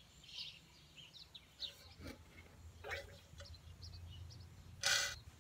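Birds chirping on and off, quiet and scattered, with one short burst of noise about five seconds in.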